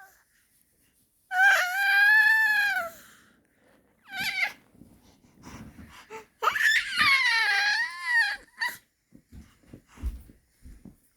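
Baby squealing in high-pitched, whale-like calls: a long call about a second in whose pitch arches up and down, a short squeak near the middle, and a second long call that swoops up and then falls. Soft breathy sounds and small clicks follow.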